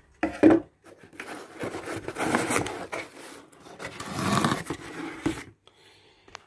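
Cardboard mailing box being torn open by hand: a couple of sharp tearing sounds near the start, then a long stretch of cardboard scraping and rustling as the lid is lifted, stopping about a second before the end.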